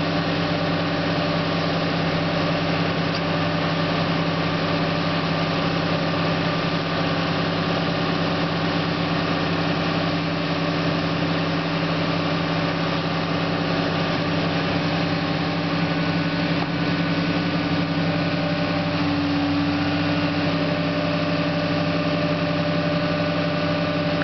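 Caterpillar tracked hydraulic excavator's diesel engine running at a steady, even speed, with a slight change in its tone about 19 seconds in.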